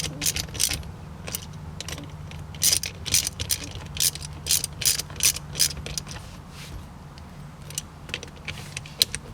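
Ratchet wrench clicking in short irregular runs as the shifter's mounting bolts with lock washers are tightened down, over a steady low hum.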